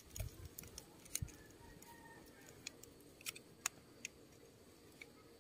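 Faint, scattered small clicks and ticks of a metal valve-tappet cover cap with a rubber O-ring being handled and turned over in the fingers.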